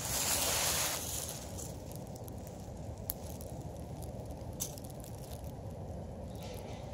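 Dry fallen leaves rustling and crackling for about the first second, then a low steady rumble with a few faint ticks.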